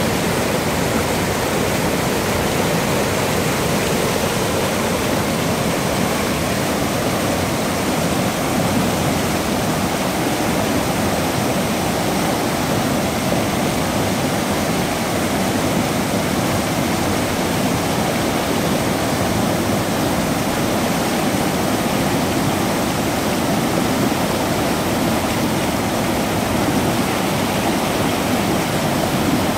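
Pyrenean mountain river in spate with snowmelt, rushing steadily over rapids and rocks.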